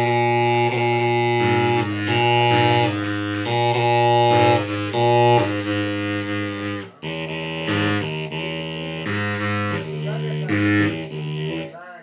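Long bamboo flutes blown together by several players, with low, reedy held tones stacked at different pitches. The notes change about twice a second in a repeating melody, with a brief break about seven seconds in.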